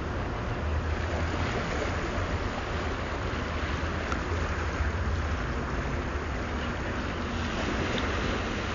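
Steady wash of sea water with wind on the microphone, over a low, steady rumble.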